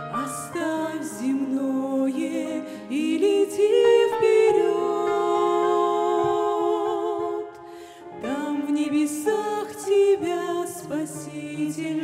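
Two women singing a slow duet into microphones, their held notes wavering with vibrato. The singing drops away briefly about two-thirds of the way through, then comes back.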